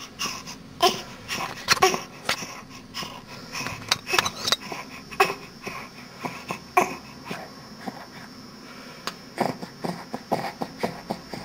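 Wheezy breathing: a series of short wheezing breaths at irregular intervals.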